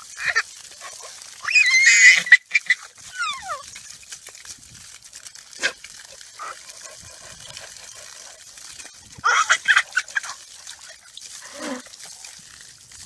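A toddler's high-pitched squealing laughter in two loud bursts, about two seconds in and again around nine to ten seconds in, with a falling squeal around three seconds in. Between them there is a faint steady hiss.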